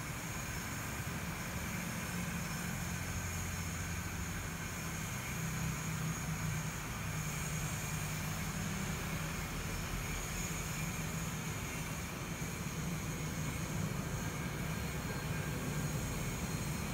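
Steady low rumble with hiss and a faint hum, unchanging, with no distinct knocks or clicks.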